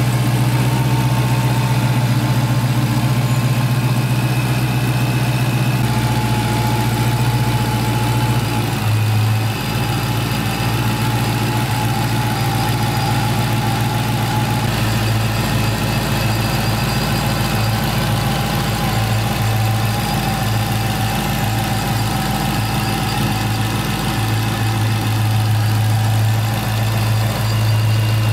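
Supercharged 6.2-litre Hemi V8 of a 2016 Dodge Charger Hellcat idling steadily, heard up close in the open engine bay.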